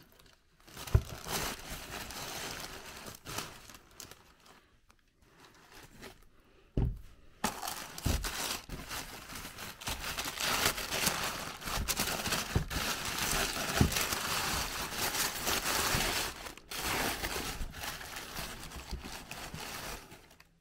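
Tissue paper rustling and crinkling as it is pushed and pulled about inside a cardboard shoe box, with a few dull knocks and a quieter stretch about four to six seconds in.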